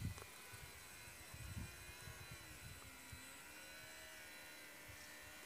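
Radio-controlled model airplane's motor and propeller whining faintly overhead, its pitch slowly dipping and rising again as the throttle and distance change. Low wind rumbles on the microphone come at the start and about a second and a half in.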